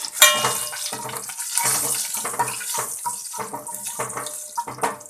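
A tempering of mustard seeds, garlic, red chillies and curry leaves sizzling in hot oil and ghee in a pan, with a metal spoon clinking against the pan just after the start and knocking repeatedly as it stirs.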